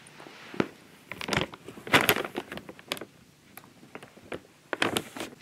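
Dry cat kibble clattering and crunching at a ceramic bowl as a cat is fed, in several short bursts of crackling clicks.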